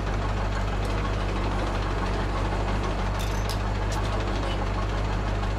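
Truck crane's engine idling steadily, a constant low drone, with a few light clicks about three to four seconds in.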